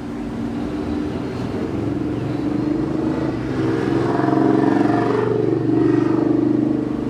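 A motor vehicle engine running, growing louder about four seconds in and easing off again near the end.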